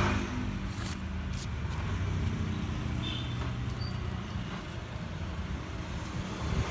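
A motor vehicle engine running steadily with a low rumble, and a couple of faint clicks about a second in.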